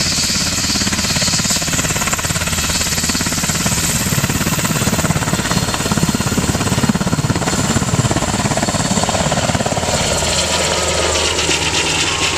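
US Army UH-60 Black Hawk helicopter lifting off, its main rotor beating in a fast, loud chop. Near the end, as it climbs away overhead, the sound settles into a steadier low drone.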